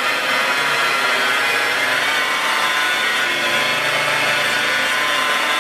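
Electric rotary polisher running steadily, its spinning foam pad buffing compound into a car's painted fender.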